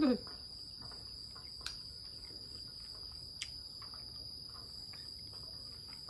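Steady high-pitched chirring of insects, with two short sharp clicks under two seconds apart.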